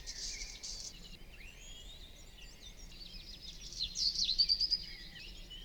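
Background birdsong: scattered high chirps and short gliding whistles, with a quicker, louder run of high chirps about four seconds in.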